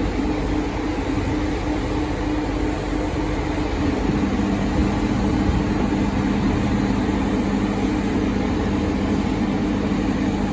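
Steady engine drone and rumble of a convoy of CSX track maintenance machines rolling across a steel truss bridge, with a low engine note that grows stronger about four seconds in.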